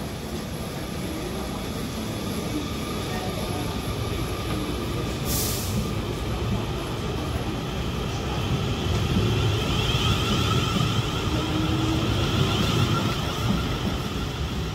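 South Western Railway Class 450 Desiro electric multiple unit departing and accelerating along the platform. The traction motors whine and grow louder from about eight seconds in. A short hiss comes about five seconds in.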